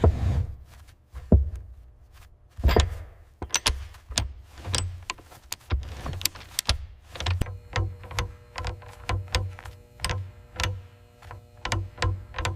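Irregular clicks, knocks and dull thuds of steel hinges and door hardware being fitted to a heavy solid-wood door. Soft held music notes come in about halfway through.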